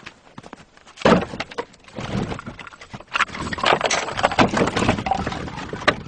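Firewood machine working logs: irregular knocking, cracking and clattering of wood, with a loud crack about a second in.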